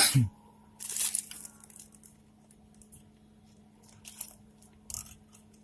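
Handling noises from small parts and materials being worked by hand: a loud short swish falling in pitch at the start, then brief crinkling, tearing-like rustles about a second in and again near four and five seconds, over a faint steady hum.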